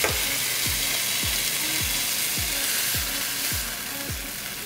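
Marinated skirt steak sizzling in an electric skillet, a steady hiss that grows fainter near the end as the steak is lifted out. Background music with a steady beat of about two thumps a second plays under it.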